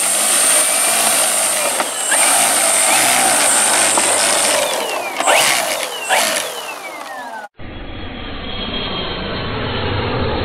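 Radio-controlled model Spitfire's engine and propeller running as it taxis on grass, its pitch falling over the last couple of seconds as the revs drop. About three-quarters of the way in it cuts off abruptly to a duller, low outro sound effect.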